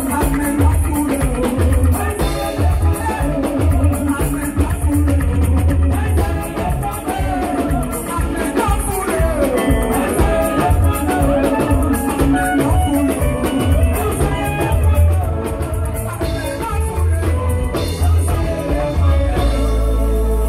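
Live band music amplified through PA speakers: a woman sings lead into a microphone over drums and a heavy, pulsing bass.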